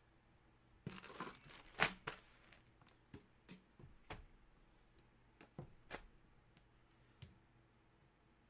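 Packaging being torn and crinkled by hand: a cluster of tearing strokes about a second in, then scattered short rustles and clicks that stop shortly before the end.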